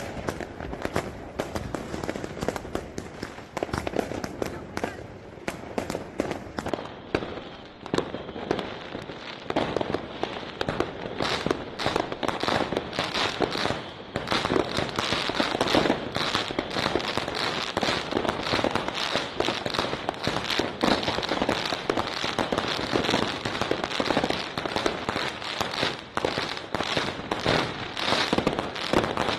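Consumer compound firework cake firing a rapid, unbroken volley of many shots with light crackling bursts, the cracks coming thicker from about a quarter of the way in.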